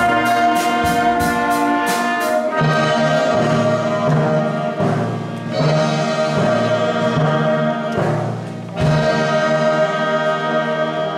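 Youth orchestra of brass, strings and drums playing the closing bars of a piece. Short accented chords for the first two seconds or so, then long held brass chords, and a final sustained chord that breaks off at the end.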